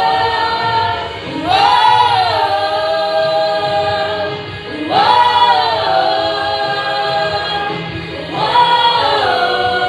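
Choir singing long held, wordless notes in a gospel worship song, in three swelling phrases.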